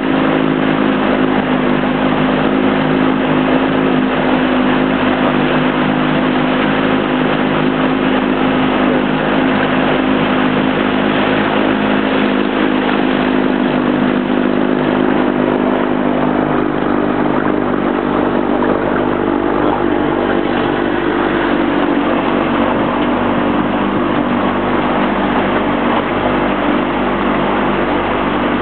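A 35 hp outboard motor running steadily on a runabout, a constant engine hum over the rush of water and wind.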